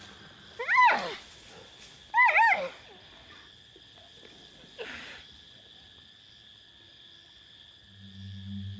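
Plains zebras giving short barking alarm calls, each rising then falling in pitch: one about a second in, a double call about two seconds in, and a faint one near the middle. A steady high insect drone runs underneath, and a low music drone comes in near the end.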